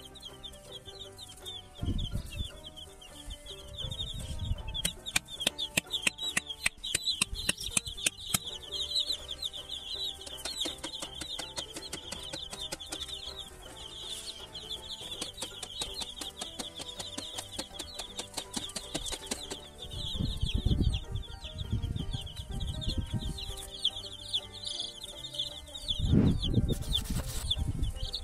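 A flock of baby chicks peeping continuously in a dense chorus of high cheeps. A run of rapid clicks comes about four to eight seconds in, and there are a few low thumps, the strongest near the end.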